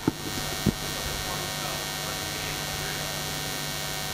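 Steady electrical mains hum over hiss from the sound system, with a faint off-microphone voice in the room.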